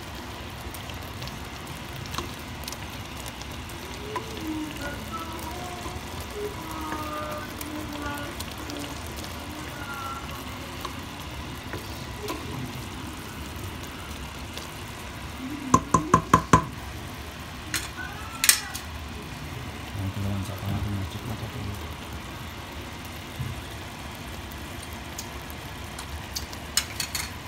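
Laing (taro leaves in coconut milk) simmering and sizzling in a stainless steel pot on a stovetop, a steady bubbling hiss. About halfway through comes a quick run of about six sharp clicks, with a few more near the end.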